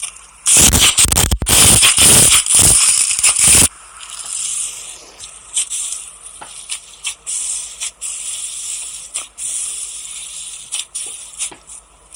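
Slime being squished, crackling and popping. A loud, dense stretch of crackling lasts about three seconds near the start, then gives way to softer scattered crackles and clicks.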